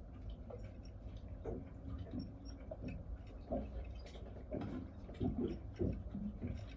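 Irregular light knocks and clicks, about a dozen scattered through, over a low steady hum.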